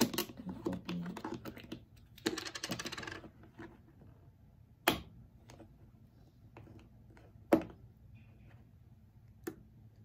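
Fingers working at the white plastic spout cap of a carton of Egg Beaters liquid egg: a scratchy run of small clicks and rustling for about the first three seconds, then single sharp clicks about five, seven and a half, and nine and a half seconds in.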